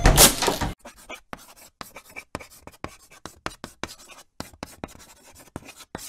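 A short loud burst at the very start, then chalk scratching out handwriting on pavement in quick, irregular strokes, a few a second.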